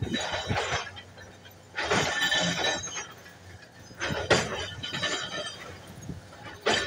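Komatsu bulldozer at work: bursts of crunching and clanking about every two seconds over a faint steady engine hum.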